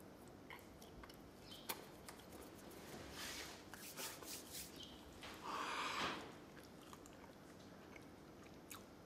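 A man quietly chewing a mouthful of croissant, with faint mouth clicks and smacks. A louder breathy sound comes about five and a half seconds in.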